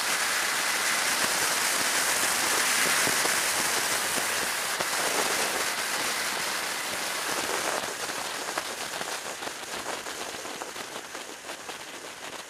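Steady wind rush on the camera microphone of a motorcycle travelling at road speed, a loud even hiss that fades out over the last few seconds.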